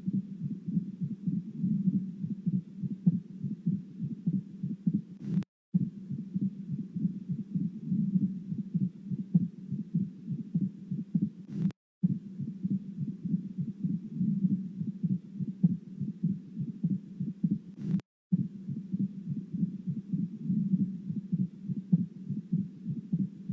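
Recorded heart sounds for auscultation teaching: a fast run of low heartbeats over a steady low sound. The clip is about six seconds long and repeats with brief silent breaks.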